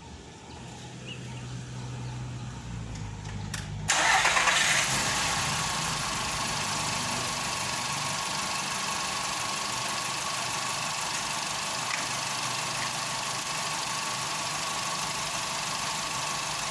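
VW Polo Vivo's 1.4-litre CLP petrol engine starting about four seconds in with a brief flare, then settling into a steady idle.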